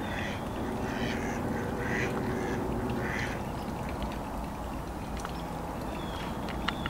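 Mallard ducks on a pond quacking, a call about once a second for the first few seconds, over a steady background hiss.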